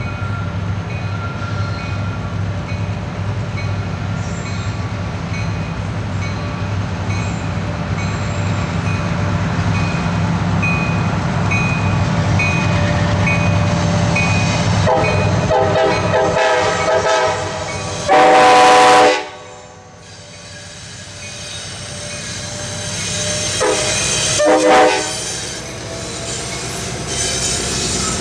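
Approaching CSX coal train's diesel locomotives running with a steady low rumble, then trading horn salutes with a pickup truck: a long horn blast that swells to a loud peak and cuts off suddenly, and a second, shorter horn blast a few seconds later as the locomotives roll in.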